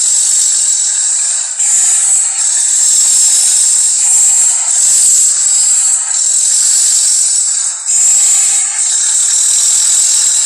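Harsh, hissing monster snarls, a big-cat-style creature voice, coming one after another in runs of one to two seconds with short breaks between them.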